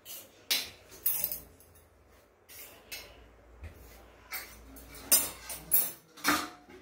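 A steel spoon clinking and scraping against stainless steel plates and a cooking pan as noodles are served out, in a run of irregular sharp clinks.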